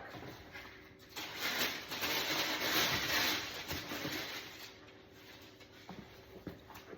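Shoes rubbing and scraping against the fabric shelf of a shoe rack as they are slid into place. The noise is loudest through the first half, then fades to quieter handling with a few small knocks.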